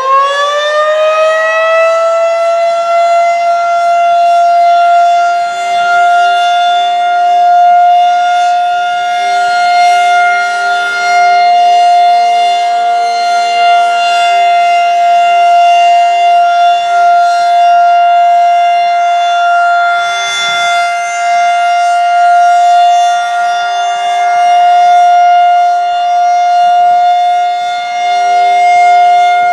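Federal Signal 2001-130 rotating outdoor warning siren sounding its steady Alert signal for a monthly test. It finishes winding up to full pitch in the first second or two, then holds one steady wail whose loudness slowly swells and fades as the siren head turns.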